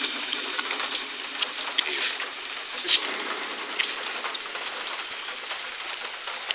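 Steady rain falling, an even hiss with a few short sharp drip sounds scattered through it, the loudest about three seconds in.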